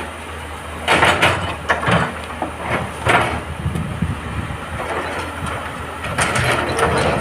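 Heavy excavator's diesel engine running steadily, with irregular bursts of rock clattering and scraping, loudest about a second in, around three seconds and again near the end.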